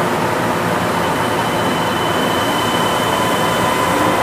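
Kanazawa Seaside Line 2000-series rubber-tyred automated guideway train running along the guideway, heard from inside the car: a steady rolling rumble with faint steady whines from the traction equipment.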